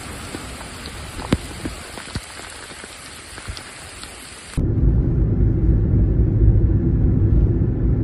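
Steady rain hiss with scattered sharp drop ticks. About four and a half seconds in, it cuts off abruptly to a much louder, deep rumble that carries on to the end.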